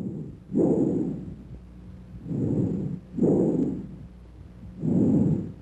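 Bronchial breath sounds heard through a stethoscope: several breaths, each a noisy rush of air that swells and fades, the expiratory sound lasting longer than the inspiratory one, with a brief silent gap between them.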